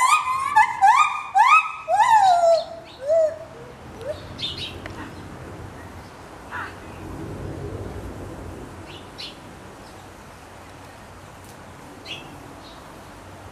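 White-handed gibbon calling: a run of loud rising hoots, about two a second, ending with two lower notes about three seconds in. After that there are only faint scattered high chirps.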